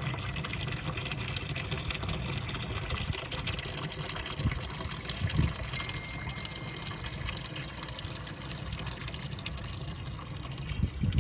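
Water bubbling and splashing into a plastic drum from the hose of an automatic irrigation system, with the watering and drainage running. A steady watery hiss with a low rumble underneath.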